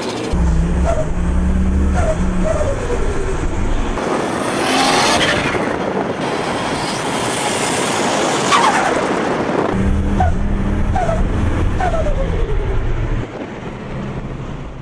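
Turbocharged straight-six of a Holden VL Commodore Turbo revving hard in two bursts, with short falling chirps of turbo flutter and a loud rushing whoosh as the throttle is lifted.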